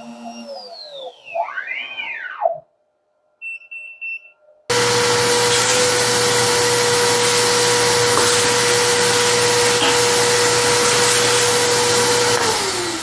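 A few seconds of electronic music with swooping tones and short beeps. Then the CNC router's trim-router spindle and its dust-collection vacuum cut in loud, running with a steady high whine over a rushing hiss. Near the end the spindle is switched off and its whine falls steadily in pitch as it spins down.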